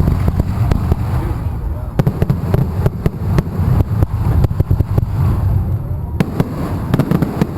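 Fireworks going off: a rapid, irregular run of sharp pops and crackles over a continuous low rumble.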